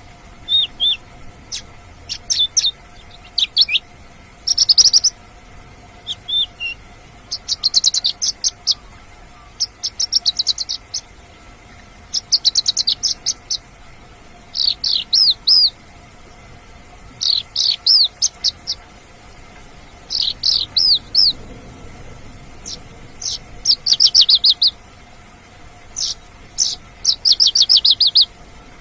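Mongolian lark singing in repeated phrases: quick runs of high, rapid chirping notes about a second long, one every two seconds or so.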